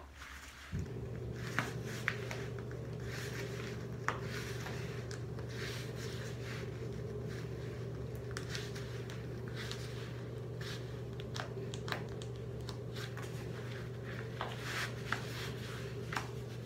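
Small clicks and rustles of a waist trainer's hook-and-eye closures being fastened one by one. Under them, a steady low hum comes on suddenly about a second in and keeps going.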